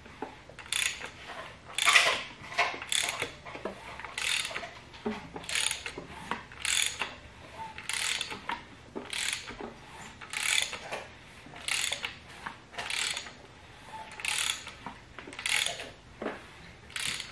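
Socket ratchet on the crankshaft bolt of a VW/Audi AEB 1.8T 20-valve engine, clicking in short bursts about once a second as the engine is turned over by hand to check that the new timing belt keeps the cams and crank in time.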